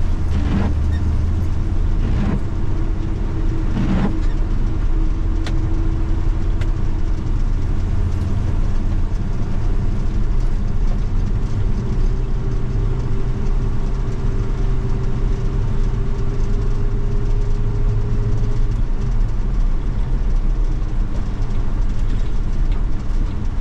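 1980 Chevy K20 pickup driving, its engine and drivetrain making a steady low drone. A faint tone in the drone moves slightly higher for several seconds mid-way, and a few knocks sound in the first few seconds.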